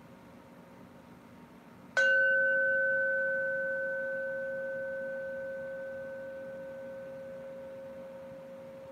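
Metal singing bowl struck once with a mallet about two seconds in, then ringing with a steady low tone and a fainter higher overtone that slowly fade away.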